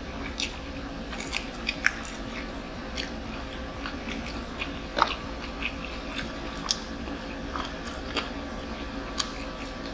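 Close-up eating sounds: chewing and crunching of fried chicken, with scattered short clicks and crackles, the sharpest about five seconds in, over a steady low hum.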